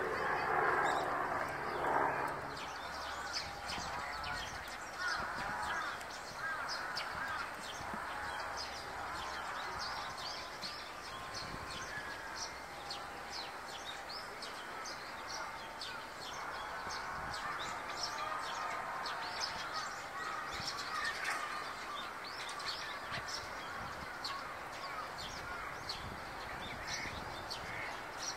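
Many Eurasian tree sparrows chirping, a steady stream of short, high, overlapping chirps. A louder rumble fades out in the first two seconds.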